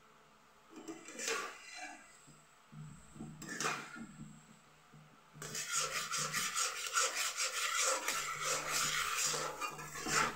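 A flat spatula scraping the bottom of a pan while stirring sugar and water into syrup: two single strokes, then from about halfway a fast run of back-and-forth scraping strokes.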